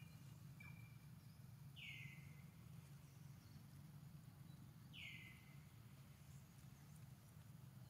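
A bird calling twice, each a short falling note about three seconds apart, over a faint low steady hum of outdoor ambience.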